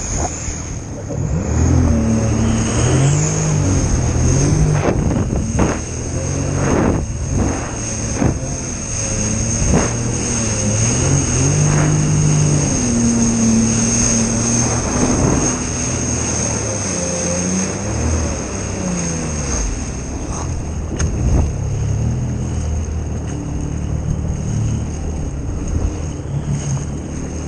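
Jet ski engine running under a changing throttle, its pitch rising and falling again and again over a steady high whine, with several short sharp knocks a few seconds in.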